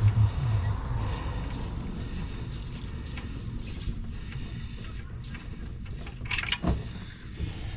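Old motor oil pouring steadily from a pickup truck's oil pan into a drain pan after the drain bolt has been pulled, with a brief clatter about six and a half seconds in.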